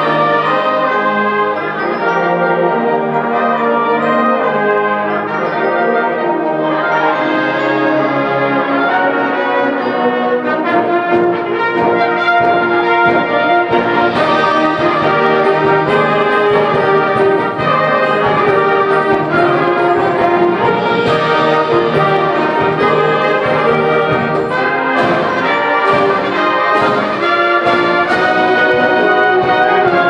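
Symphonic wind band playing full ensemble, with brass to the fore in sustained chords. Percussion hits and a deeper bass come in about a third of the way through and grow busier near the end.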